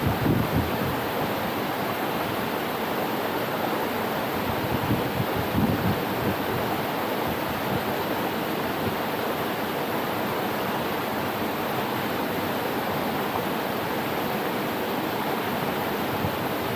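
Waterfall making a steady, even rush of falling water, with a few brief low thumps near the start and about five to six seconds in.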